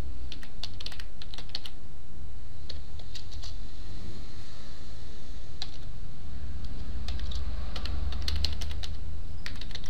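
Computer keyboard typing: keystrokes come in short runs with pauses between them, over a steady low hum.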